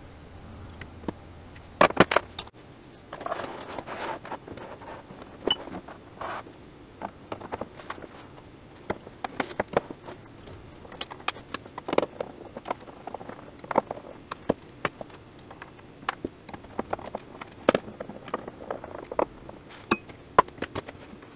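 Hands handling a flat-screen TV and its parts during reassembly: irregular light clicks, knocks and scrapes of plastic and metal, with a louder clatter about two seconds in.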